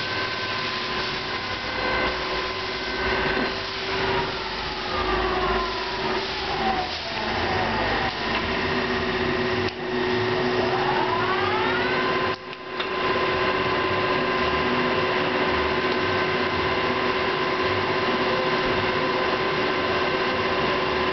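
Victor 1660BVS variable-speed geared-head engine lathe running, with a steady mechanical whine from its drive. Its pitch slides down over a few seconds, then climbs back up. There is a brief dropout about twelve seconds in, and then it runs steady.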